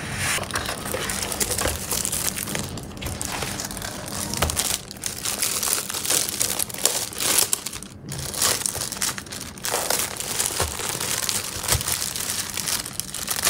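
Thin clear plastic wrapping on a new laptop crinkling and rustling as it is handled and pulled off, with a brief lull about eight seconds in.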